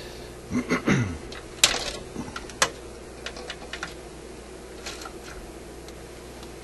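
Sharp clicks and light ticks of hand tools and component leads being handled inside a vintage tube radio's metal chassis during capacitor replacement. Two louder clicks come about one and a half and two and a half seconds in, with scattered smaller ticks after.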